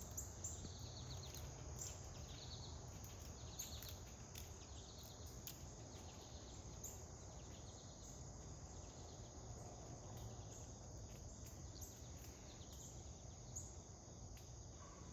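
Faint outdoor ambience: insects chirping in short repeated trills, with a few brief high chirps, over a low steady rumble.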